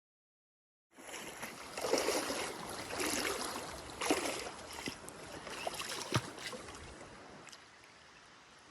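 Water splashing and sloshing around a small boat on a river, with a few sharp knocks among it; it starts about a second in and settles down over the last couple of seconds.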